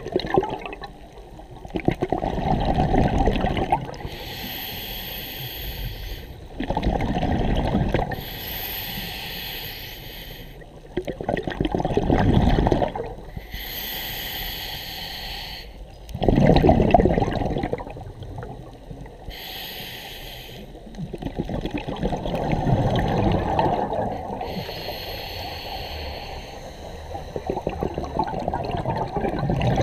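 A scuba diver breathing through a regulator underwater: a hiss from the regulator on each inhale, then a low rush of exhaled bubbles, in a slow rhythm of about one breath every five seconds.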